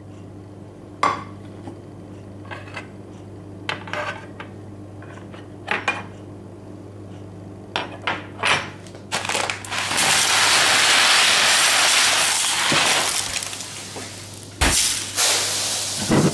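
A china plate and metal cutlery being set down on a table with sharp clinks and knocks. Then comes a few seconds of steady rushing hiss of dry rice grains being poured out, and after it a heavy thud near the end.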